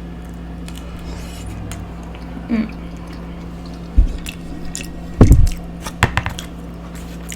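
A person eating, with chewing and a few sharp knocks and thumps; the loudest comes a little past the middle. A steady low hum runs underneath.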